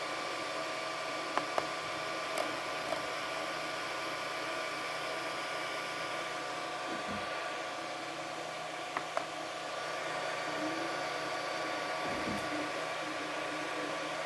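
Ender 3 V2 3D printer running a print: a steady whir of its cooling fans with the steady whine of its stepper motors. A few sharp clicks come about a second and a half in, again around two and a half seconds, and twice about nine seconds in.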